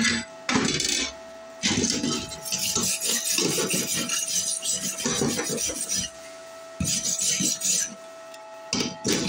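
A wire brush scrubbing slag off a fresh stick-weld bead on a steel plate. It goes in several long spells of rapid back-and-forth scraping, with short pauses between them.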